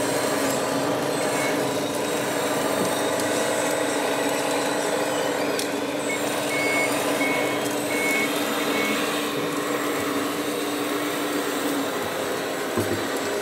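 Sound modules of scale RC construction machines: a steady engine drone, with a reversing alarm beeping about five times around the middle. The drone stops near the end.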